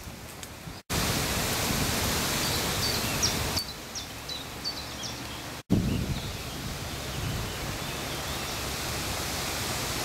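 Steady outdoor hiss of woodland ambience, with a small bird giving a quick series of short high chirps a few seconds in. The sound drops out abruptly for an instant twice, at edits.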